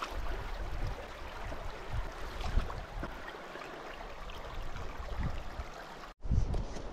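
Water running steadily in a creek, an even rushing hiss with small splashy ticks. About six seconds in it cuts off abruptly to low wind rumble on the microphone.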